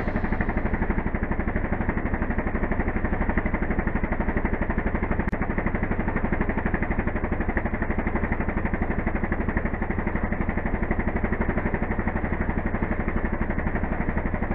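Vehicle engine running steadily, heard from on board, with a rapid, even throb.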